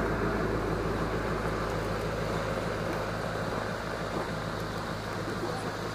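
Engine running steadily with a low drone, slowly getting quieter.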